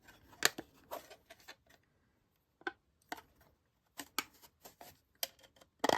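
Scattered sharp clicks and taps of hard plastic: a small diamond-painting drill storage tray and its lid being handled and fitted together, with a small cluster of clicks near the end.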